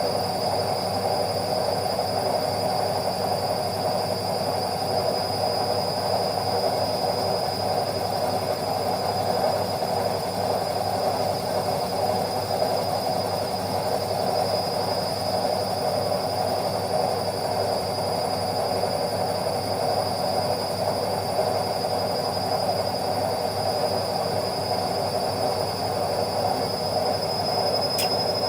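Indesit washing machine running steadily: an even churning noise with a thin, high, steady whine above it, and a single brief click near the end.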